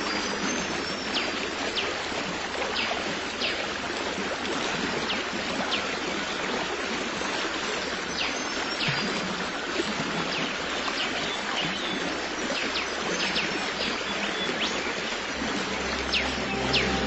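Stream of water flowing steadily, with short high chirps dotted over it; music comes in near the end.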